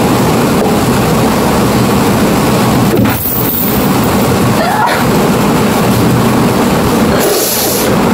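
Cinematic sound design from the opening of a music video: a loud, dense rumble with a brief gliding sweep midway and a hissing swell shortly before the end.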